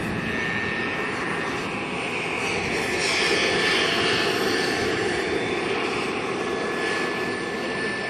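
JetCat PHT3 gas turbine and rotor of a model Hughes 500E helicopter in flight: a steady high turbine whine over a rushing noise, growing a little louder about three seconds in.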